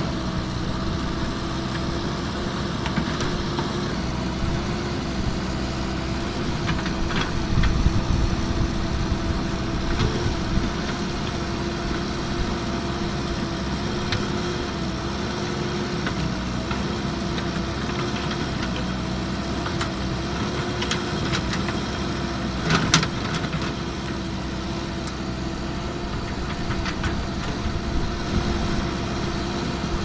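JCB backhoe loader's diesel engine running at a steady speed while the backhoe arm works. A few sharp clanks cut through, the loudest about two-thirds of the way in.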